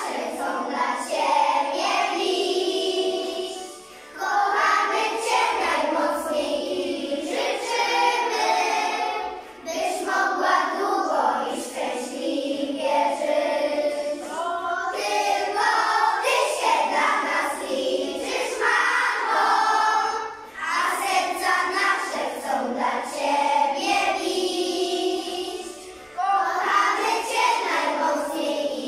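A group of young children singing a song together in chorus, in phrases with short pauses between.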